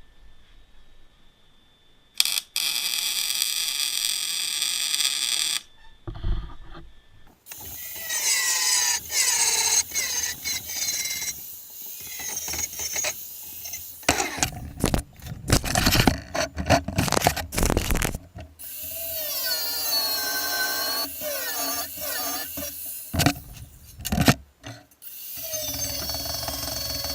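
Angle grinder grinding down weld beads on a steel frame. The whine runs steady at first, then dips and recovers in pitch over and over as the disc bites into the weld and eases off, with a few short breaks between passes.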